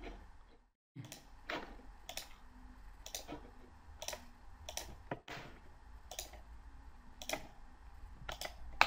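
Computer mouse clicking: about ten single sharp clicks, spaced irregularly, over a faint steady hum. The sound drops out entirely for a moment just before one second in.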